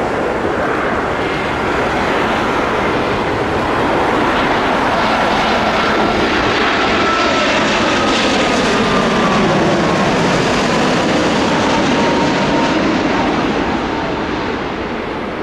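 Boeing 787 Dreamliner's GEnx turbofan engines on a low final approach with the gear down: a broad, steady jet noise that builds as the airliner passes, with a thin whine that slides down in pitch as it goes by. The noise eases off near the end.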